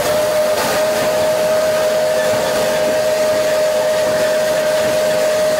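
Narrow-gauge steam locomotive's whistle blowing one long steady note over a steady rushing hiss of steam, heard from inside the locomotive's cab.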